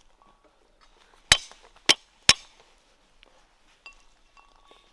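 Three sharp clinks of hard kitchenware striking, one after another within about a second, each with a short ring.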